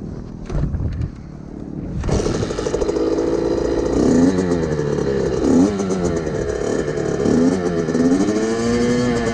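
Small motorbike engine catching about two seconds in after some clattering, then running with the revs dipping and picking back up several times and held steady near the end, as the rider tries to hold the revs up.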